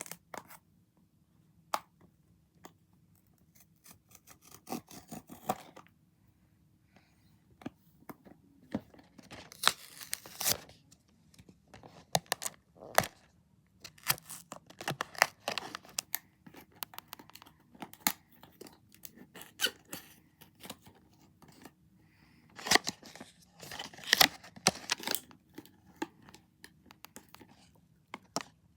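Blind-box packaging being torn open and crinkled by hand: irregular tearing, rustling and crackling with scattered sharp clicks, heaviest near the middle and again near the end.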